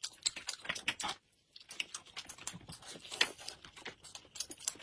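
Close-miked chewing and mouth clicks of people eating soft steamed buns, with many small sharp clicks. All sound cuts out briefly just after a second in.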